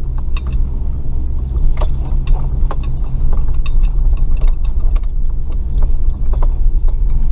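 Off-road truck driving over rough ground: a steady low engine and drivetrain rumble with frequent scattered knocks and rattles.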